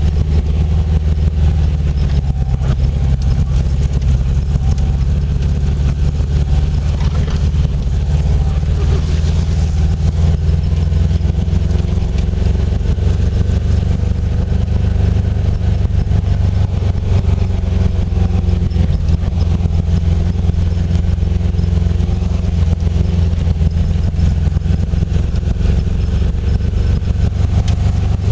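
Classic Volkswagen Beetle's air-cooled flat-four engine running as the car drives a dirt forest track, heard from inside the cabin: a steady, loud low drone whose pitch drifts slowly up and down with engine speed.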